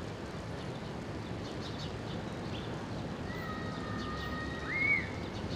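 Outdoor city-park ambience: a steady low rumble of distant traffic with faint, brief small-bird chirps. About three seconds in, a clear whistle-like two-tone sound holds level for about a second and a half, then jumps up in a short rise and fall, the loudest moment.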